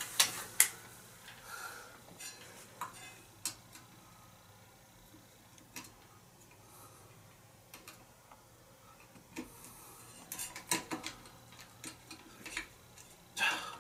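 Scattered light metallic clicks and scrapes of a flathead screwdriver working the blade-mount screws out of a ceiling fan's motor housing, with a busier run of clicks past the middle and a louder one near the end.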